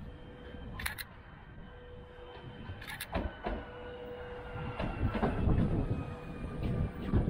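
Alstom Citadis Dualis tram-train running into a station and slowing: the electric drive whines in several tones that drift slightly downward, and the wheels rumble on the rails, loudest as the cars pass close by about five to seven seconds in. There are a couple of sharp clicks early on.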